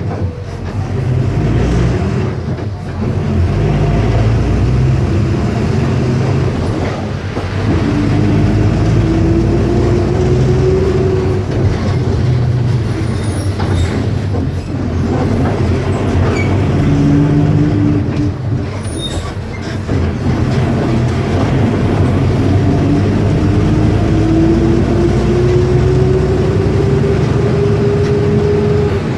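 Volkswagen 17.230 EOD bus's diesel engine running under way, with a whine that rises in pitch as it pulls through a gear, twice, plus a short one in between.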